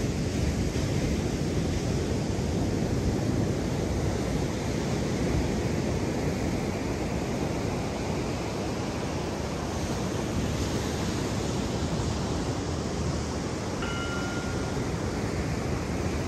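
Steady rush of ocean surf mixed with wind noise on the microphone, with a brief faint tone near the end.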